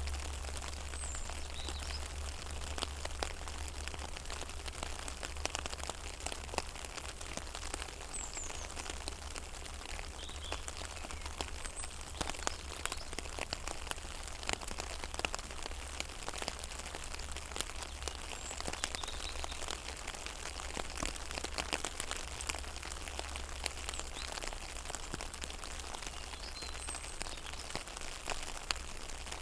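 Rain falling on a pond's surface: a dense, steady patter of drops on water, with a few faint bird chirps now and then and a steady low rumble underneath.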